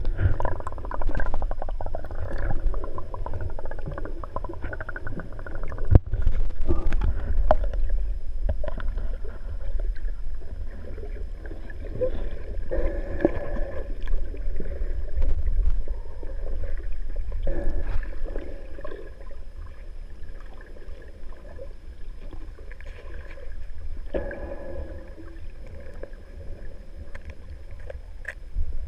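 Water heard through a GoPro's housing underwater: a muffled, steady low rumble with sloshing and gurgling of water as snorkelers swim over seagrass, and a sharp knock about six seconds in.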